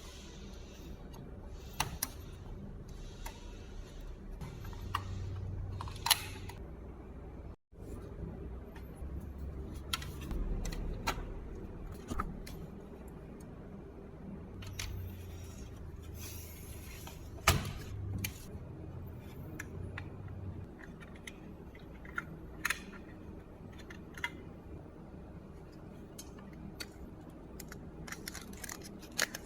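Hands handling and fitting small parts of a mini PC: scattered clicks, taps and knocks over a low background, with the sound cutting out for an instant about a quarter of the way in.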